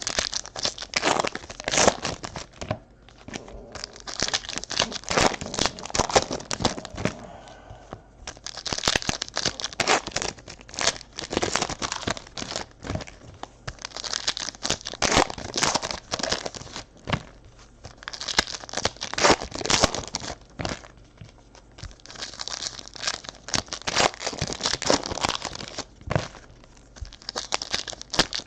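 Trading card pack wrappers being torn open and crinkled, in repeated bursts every couple of seconds.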